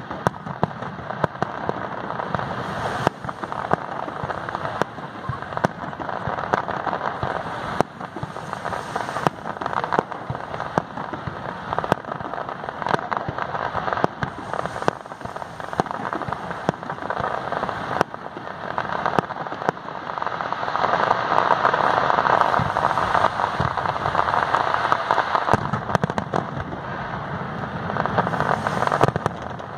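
Aerial fireworks display: a dense, continuous crackling from glittering shells, cut through by many sharp bangs of bursting shells. The crackling grows thicker and louder about two-thirds of the way through.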